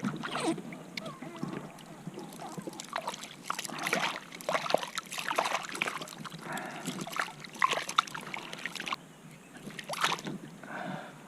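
Water splashing and sloshing in irregular bursts, with a last splash about ten seconds in.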